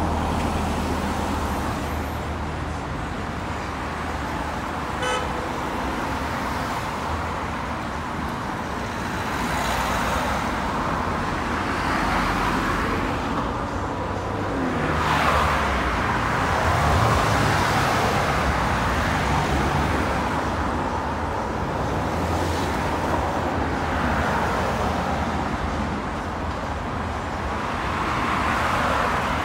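Steady road traffic with cars passing close by one after another, each swelling and fading; the loudest pass-by comes about halfway through.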